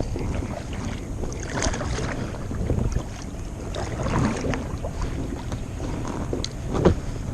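Wind rumbling on the microphone on a small boat, with water splashing against the hull a few times.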